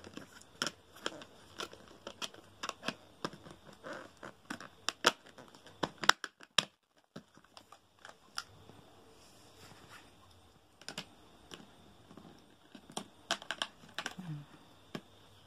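Plastic toy kitchen pieces clicking and knocking as they are handled and pressed into place: pink plastic burner grates being fitted onto a toy stove's white plastic top. The clicks come thick at first, thin out in the middle and pick up again near the end.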